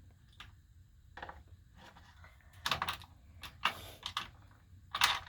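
Irregular clicks and knocks of a clamp being handled and fitted, a few sharper ones near the end.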